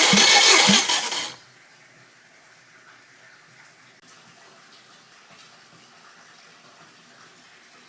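Subaru EJ201 2.0-litre flat-four engine running loudly, then shut off abruptly a little over a second in. Only a faint steady hiss remains after that.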